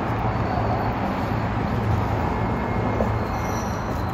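Steady road-traffic rumble from an elevated freeway, heavy in the low end.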